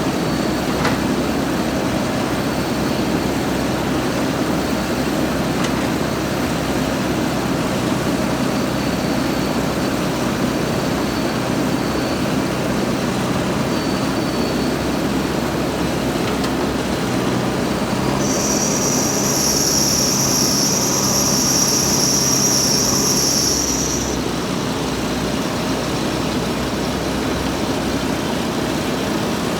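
JCB backhoe loader's diesel engine running steadily under work. About two-thirds of the way through, the engine gets a little louder and a high steady squeal comes in over it for about six seconds, then stops sharply.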